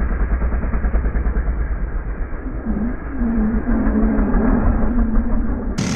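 Briggs & Stratton LO206 four-stroke kart engine running at race speed, revs rising and falling, heard from an onboard camera with wind rush and a muffled tone. Near the end the sound changes abruptly to a brighter, fuller engine noise.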